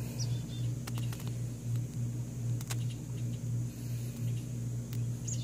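Small Live Fire fire-starter flame burning with a few faint scattered crackling ticks, over a steady low hum.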